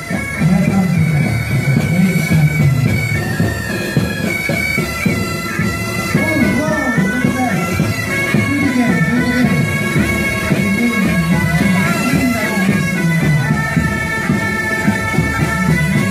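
Marching pipe band of bagpipes playing a tune over their steady drones.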